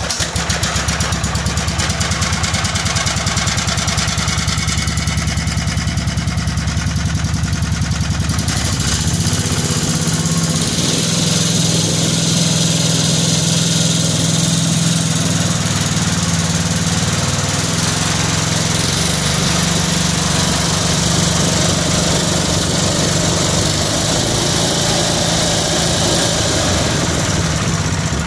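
Kohler Command CH16S single-cylinder engine running on a newly fitted ignition module that replaces a faulty coil and spark advance module. Its note changes about nine seconds in, with the engine speed rising, and it then runs steadily.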